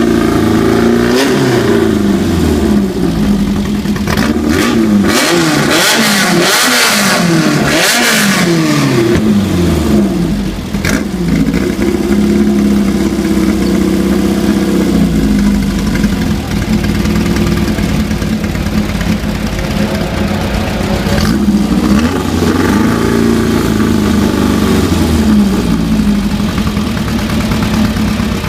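Buggy engine being revved hard in repeated blips, its pitch climbing and falling, then held at a steady speed before another run of revs near the end. The engine is loud and powerful, heard as it is tuned, with harsh noisy bursts in between revs during the first run.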